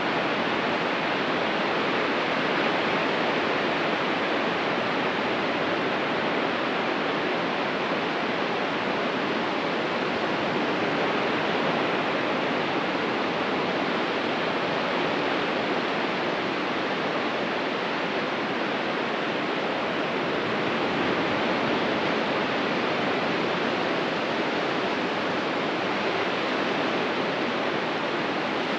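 Ocean surf on a beach: a steady, continuous wash of breaking waves with no single wave standing out.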